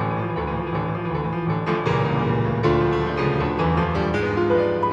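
Background piano music, notes played continuously without a break.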